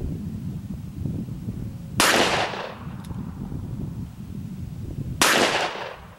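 Two shots from a 1961 Smith & Wesson Model 10-3 .38 Special revolver, fired single action about three seconds apart, each with a short echoing tail.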